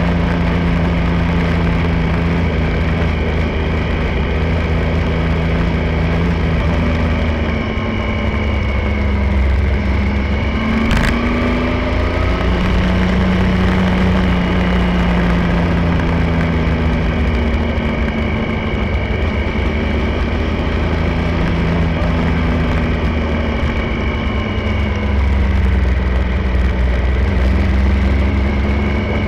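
Triumph Tiger 1050's three-cylinder engine running under way, its pitch rising and falling several times, over heavy low wind rumble on the microphone. A single short, sharp click about eleven seconds in.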